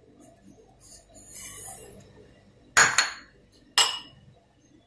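Kitchen bowls and utensils clinking on a countertop: a soft hiss about a second in, then two sharp clinks about a second apart, the first about three seconds in.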